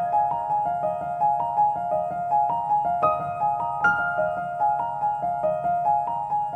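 Background music: a gentle repeating piano or keyboard figure of quick, even notes with occasional higher accents.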